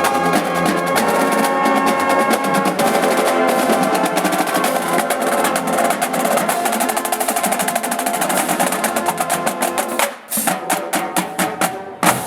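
Drum and bugle corps playing: held brass chords over a rapid snare drum line. About ten seconds in the brass drops away, leaving separate drum strokes and one loud hit just before the end.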